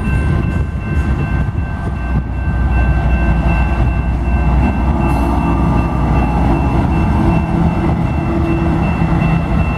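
Freight train rolling by at close range: tank cars and boxcars passing with a steady rumble of wheels on rail, then a CSX diesel locomotive passes with its engine sound coming up in the second half. A steady high ringing tone sits over the train.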